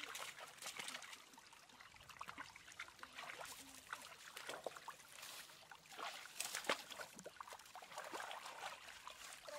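Shallow rocky stream water trickling, with irregular small splashes as hands and bare feet move through it and among the stones.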